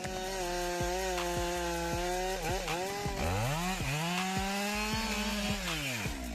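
Two-stroke chainsaw engine running at high revs. Its pitch dips sharply twice around the middle as it loads up, climbs back to full speed, then falls away near the end.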